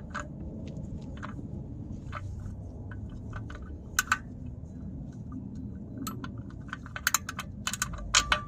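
Scattered light metallic clicks and clinks of hand tools being handled, with a small cluster of quicker clicks near the end, over a low steady background rumble.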